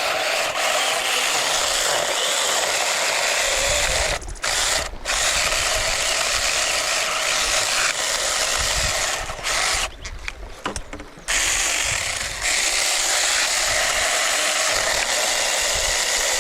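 A power tool running in long, steady stretches, stopping abruptly for a moment a few times: twice around four to five seconds in, and for about a second just past the middle.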